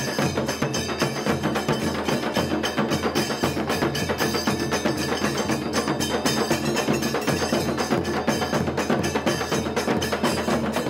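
Music with fast, dense percussion striking many times a second over a steady low drone.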